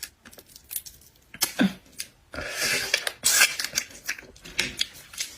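Close-up eating sounds of shellfish: scattered clicks and cracks of shell, with a wet sucking slurp about halfway through.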